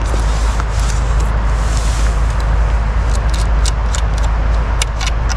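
Wind buffeting the microphone: a loud, steady low rumble with rushing noise over it. In the second half come a run of light clicks and taps.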